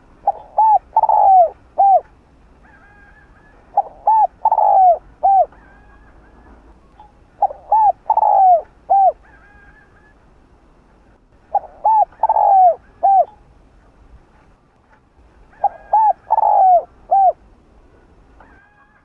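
Spotted dove cooing: five phrases about four seconds apart, each a group of four notes in which the third is the longest and loudest.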